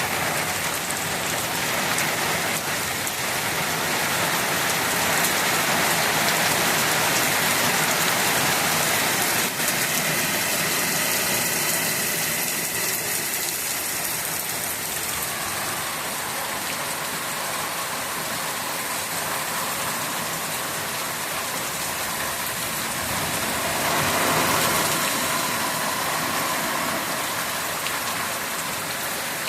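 Heavy rain falling steadily as a wide, even hiss, swelling slightly a few seconds in and again near the end.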